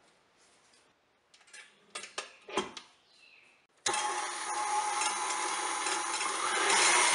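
A few clicks and knocks as the whisk and head of a KitchenAid Artisan stand mixer are set in place, then, about four seconds in, the mixer switches on abruptly and its motor and wire whisk run steadily, whipping egg whites toward stiff peaks, growing louder near the end.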